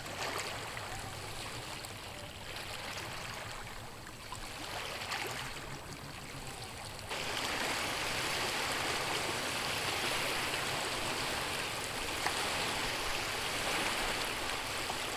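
Small lake waves lapping and washing over the stones at the water's edge, close by. The splashing grows louder about halfway through as bigger wavelets break right at the shore.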